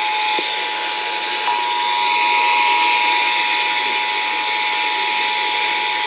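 Emergency Alert System two-tone attention signal: a steady dual tone held without a break, over a continuous hiss that grows stronger about two seconds in.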